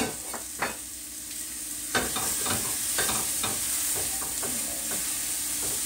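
Bell pepper strips sizzling in a stainless steel pot, with tongs clicking and knocking against the pot as the peppers are stirred.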